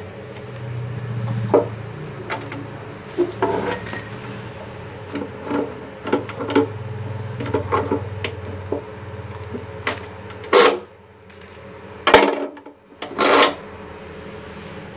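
Metal knocks and scrapes as a steel bar is handled and clamped in the screw vise of a cut-off saw, a dozen or so irregular clanks with the sharpest near the end, over a low steady hum.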